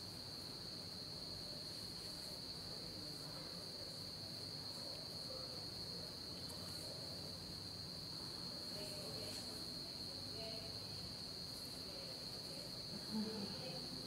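Crickets chirping in a steady, unbroken high-pitched trill, with one brief soft sound near the end.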